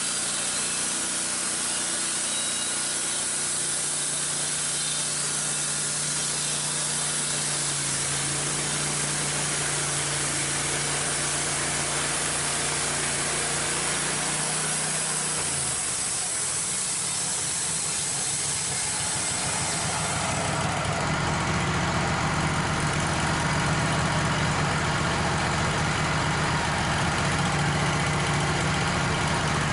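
Wood-Mizer LT15 portable band sawmill's engine running steadily as the mill warms up. About halfway through the engine note changes, and from about two-thirds of the way in it runs a little louder and steady again.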